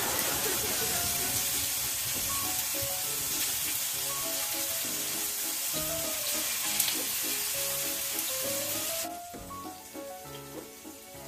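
Tomato and vegetable slices frying in oil in a pan, a steady sizzle that drops away abruptly about nine seconds in, with a light background melody underneath.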